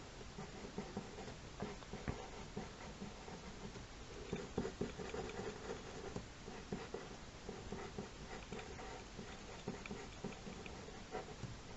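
Eraser and pencil working on paper: a run of small, irregular rubbing and scratching strokes.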